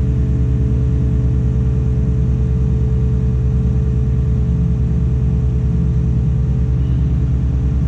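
Tadano 180G-5 crane's diesel engine running steadily, heard from inside the operator's cab as a loud, even low hum with a steady tone above it.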